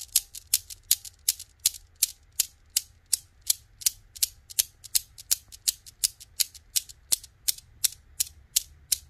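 Seven-ball steel Newton's cradle swinging, its balls clacking together in a steady rhythm of about three sharp clicks a second.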